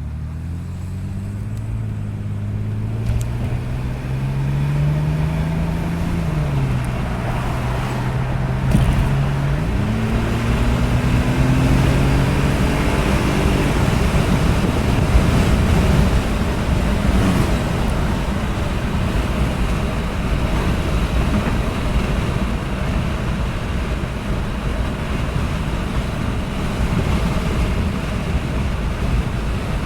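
Car engine under acceleration on a test drive after a vacuum leak repair. Its pitch climbs, drops at a gear change about seven seconds in, and climbs again. From about halfway on, a steady rush of road and wind noise covers the engine.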